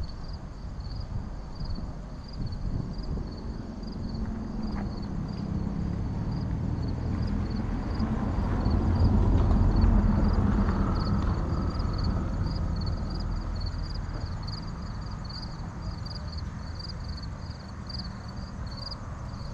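A distant low rumble swells to a peak about halfway through and then slowly fades. Throughout, an insect chirps steadily in a high, even series, about two to three chirps a second.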